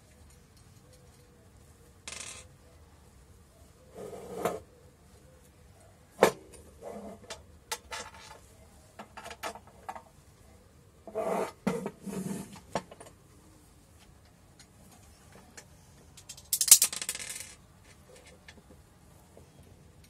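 Metal parts of an angle-grinder stand handled and adjusted with cloth-gloved hands: scattered clicks and taps of metal on metal, and rubbing. About three-quarters of the way in comes a louder rasping noise lasting about a second.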